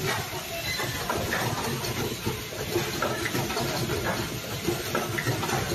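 Automated rotary-table laser welding machine running, a steady mechanical hum and air hiss with scattered light clicks.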